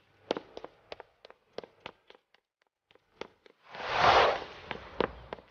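Quick footsteps clicking sharply on a hard floor as a woman hurries along. About four seconds in, a brief rushing whoosh swells and fades, and the footsteps carry on after it.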